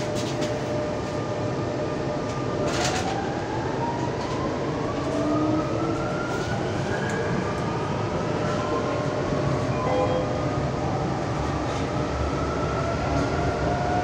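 Metro train heard from inside the car while it runs between stations: a steady rumble of wheels on the track, with an electric motor whine that rises in pitch twice.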